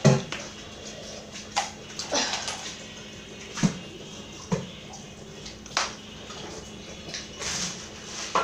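A person gulping water from a plastic cup, then breathing out hard a few times between scattered small clicks and knocks, over a low steady hum.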